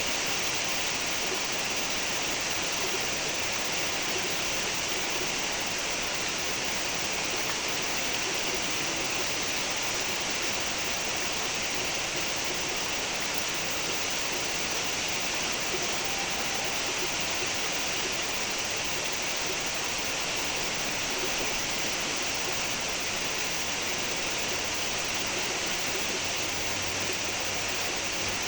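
Steady rainfall, a continuous even hiss with no single drops standing out.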